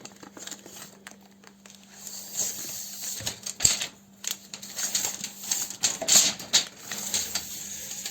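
Irregular clicks, taps and rustling as a hair dryer's thick power cord is handled and stretched out to be measured. The handling grows busier from about two seconds in.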